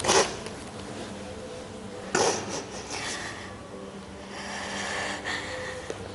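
A woman crying: two sharp sniffling breaths about two seconds apart, then softer breathing.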